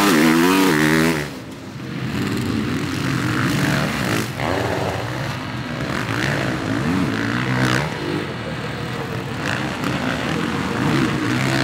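Four-stroke Honda CRF450R motocross bike engine revving hard. Its pitch climbs and drops again and again with the throttle and gear changes, loudest in the first second as it accelerates.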